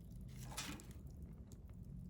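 Wood fire crackling, with scattered pops over a low rumble and a brief hiss about half a second in.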